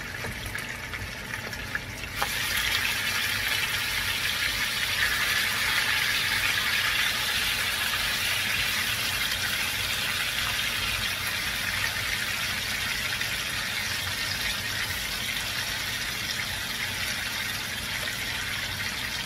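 Pork pieces frying in hot oil in a wok: a light sizzle that jumps sharply louder about two seconds in as the meat goes into the oil, then stays a steady sizzle.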